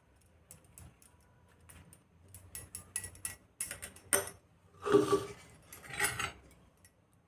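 A steel spoon and a small bowl of oil being handled: a scatter of light clicks, then two louder metallic clinks about a second apart near the end.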